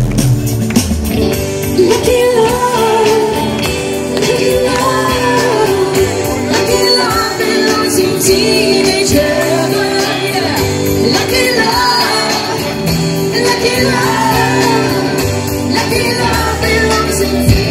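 Live pop band playing with a lead singer, heard from the audience through the stage's large PA speakers.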